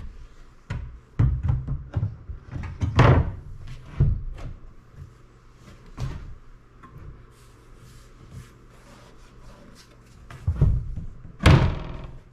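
A kitchen sink being lowered and set into a countertop cutout: a series of hollow knocks and thuds as it bumps against the counter. The heaviest thumps come about a second to three seconds in and again near the end.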